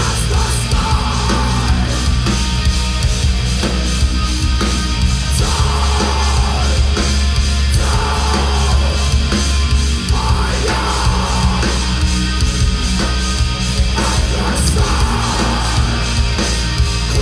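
Atmospheric black metal band playing live: distorted electric guitars, bass and drums at full volume, heard from among the audience with a heavy, booming low end.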